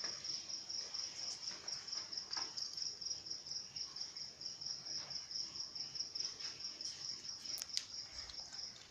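Insect chirping: a high, steady pulsing trill of about six pulses a second that stops shortly before the end, with a few faint clicks and taps.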